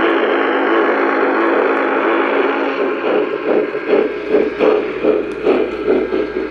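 O-gauge model steam train sound system: a steady hiss with a low hum, then from about three seconds in, rhythmic chuff-like pulses about three a second, as a train runs past on the next track.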